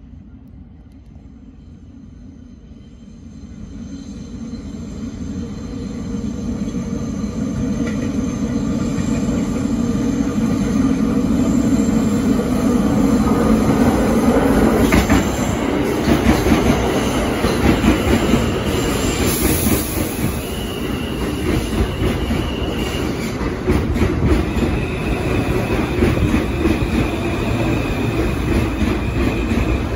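New York City Subway R160A-2 subway train approaching on elevated track and pulling into the station, growing steadily louder over the first dozen seconds as it nears. In the last third, as it draws alongside the platform, a steady high tone sits over the running noise.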